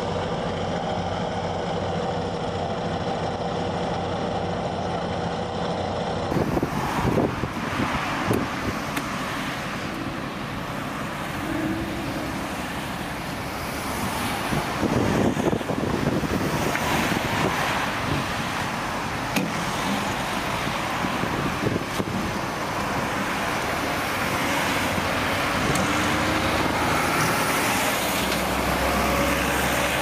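Steady drone of an asphalt paver's diesel engine running. About six seconds in it cuts abruptly to city street traffic, with vehicles passing and a heavy truck rumbling by near the end.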